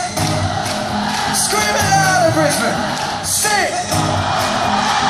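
Live concert music recorded from within the audience: a repeating bass line with steady percussion, voices singing over it and crowd whoops and shouts.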